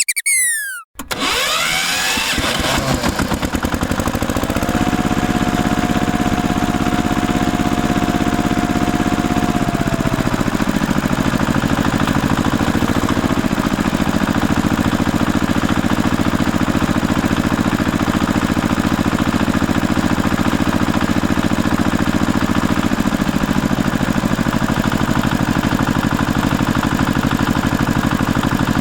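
A few quick falling whistle-like sweeps, then an engine running steadily with an even, rapid pulse.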